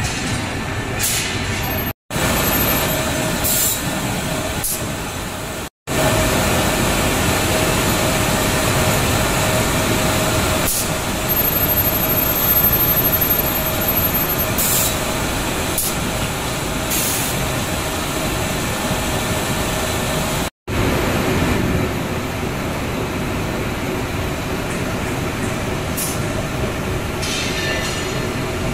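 Automatic double-edge glass grinder and its roller conveyor running, giving a steady machine noise with a faint hum and a few short hisses. The sound cuts out completely for an instant three times.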